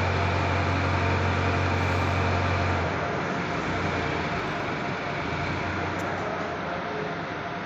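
Small electric motor, a flat metal strip pinned to its shaft, running with a loud low hum over a rough rasping noise; the hum drops away about three seconds in while the rasp continues.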